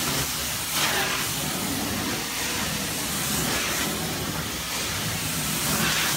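Hot-water extraction carpet-cleaning wand, fed from a truck-mounted unit, hissing steadily as it is stroked across the carpet, spraying hot water into the pile and vacuuming it back up. The rush surges briefly about a second in and again near the end.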